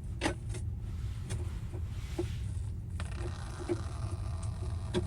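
Scattered light clicks and taps of PEX crimp rings and fittings being handled, over a steady low rumble.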